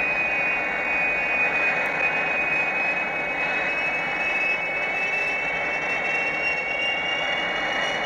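Monster flying sound effect: a steady rushing noise with a high whine over it, one tone of which slowly climbs in pitch in the second half.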